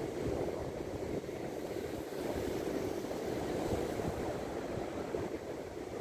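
Atlantic surf breaking and washing over a rocky shore, a steady rush of water, with wind buffeting the microphone.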